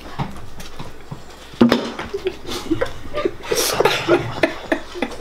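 Stifled laughter and short chuckles from people at a table, mixed with a few small knocks and clicks.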